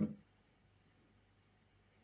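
A short knock dies away at the very start, then near silence: room tone.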